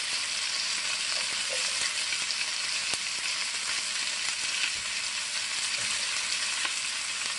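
Chuck roast, sliced onions and sweet peppers sizzling steadily as they sear over high heat in a ceramic-coated braising pan, with a faint click about three seconds in.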